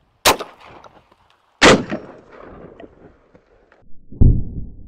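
12-gauge Benelli M4 shotgun firing 8-shot birdshot: a sharp crack shortly after the start, then a louder shot with a rolling echo about a second and a half later. Near the end a deep, low boom.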